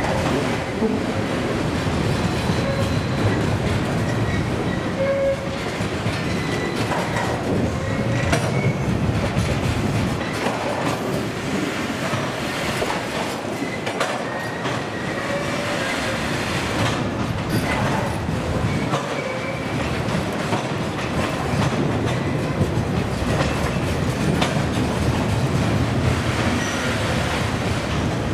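A freight train rolling past at a steady level, its wheels clicking over the rail joints, with short faint squeals from the wheels now and then.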